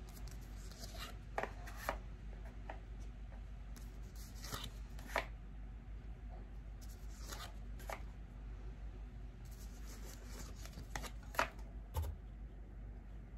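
Tarot cards handled one by one: scattered soft clicks and slaps as cards are flipped and laid down, every second or two at uneven intervals, over a low steady hum.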